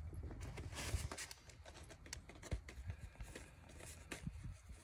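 A burning fire-starter disc crackling faintly, with scattered irregular clicks. A low rumble of wind on the microphone fades out about a second in.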